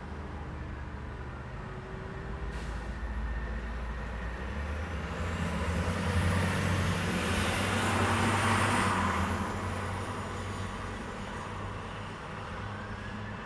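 A heavy road vehicle passing close by, its low engine rumble and tyre noise swelling to loudest about halfway through and then fading away.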